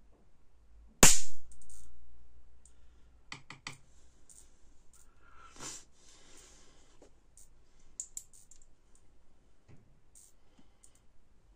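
A high-voltage spark cracks loudly about a second in as a screwdriver shorts the output wires of a homemade capacitor-diode voltage-multiplier mosquito-killer circuit, dumping its stored charge. A few fainter snaps and clicks follow.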